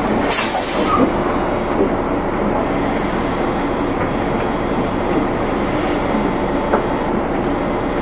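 City bus heard from inside the cabin while driving: steady engine and road noise, with a short hiss about half a second in.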